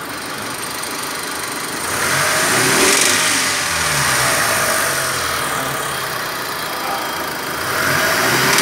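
Mitsubishi L200 engine revved up twice, about two seconds in and again near the end, with a rattle under acceleration that the owner puts down to the balancer on the left side.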